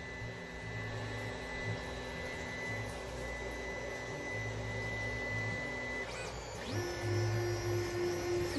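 Ender 5 Plus 3D printer's stepper motors whining at a steady pitch as the print head draws its priming line at the start of a print; about six seconds in the whine changes to a new steady pitch as the move changes.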